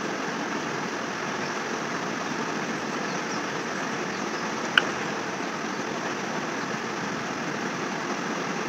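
Steady, even background noise running without change, with one brief click about five seconds in.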